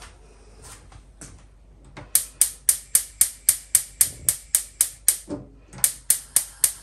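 Gas hob's spark igniter clicking rapidly, about four sharp clicks a second, as the burner knob is turned to light the flame. The clicking starts about two seconds in, stops briefly near the end, then starts again.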